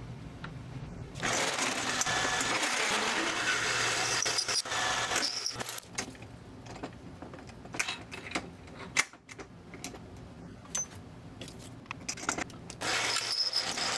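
Mini lathe drilling a 5/8-inch hole through mild steel with a twist drill in the tailstock chuck: the lathe motor hums, then the cut comes in as a steady harsh hiss for a few seconds, gives way to a quieter stretch of scattered clicks, and comes back near the end.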